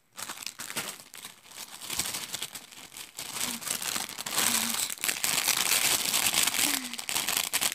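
Thin clear plastic packaging bag crinkling and rustling as it is handled and a squishy toy is worked out of it. The crinkling grows louder about halfway through.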